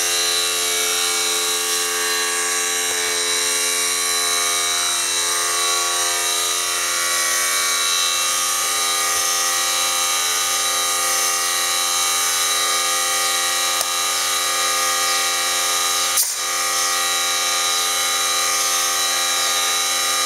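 A steady electric buzz, even and unbroken, with one sharp click about sixteen seconds in.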